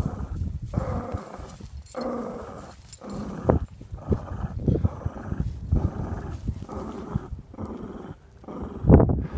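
Small Lhasa Apso dog growling in a string of short growls, about one a second. A louder thump near the end.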